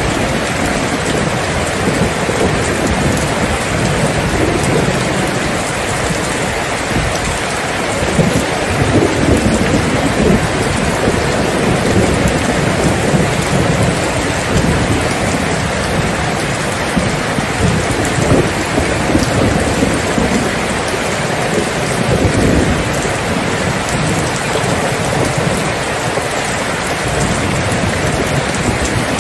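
Steady rain falling, with rolling thunder rumbling low underneath it at times.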